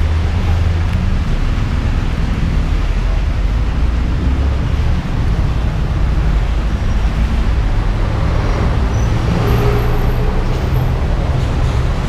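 Motor vehicle engines running nearby, a steady low rumble with traffic noise.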